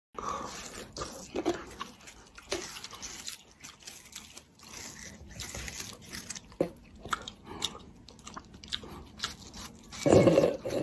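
Teeth biting into a slice of watermelon, from a cat and a person sharing it: irregular short crunches and chewing. A louder burst comes near the end.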